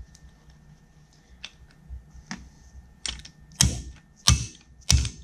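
Plastic-faced mallet tapping a wrist pin out of a Yamaha 760 jet ski piston: a few faint clicks, then about four sharp taps in the last two seconds, three of them loud.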